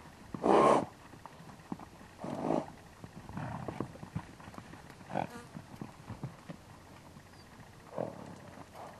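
Wild mustang stallions fighting, squealing loudly several times, the loudest cry about half a second in. Hooves thud on the dirt between the cries.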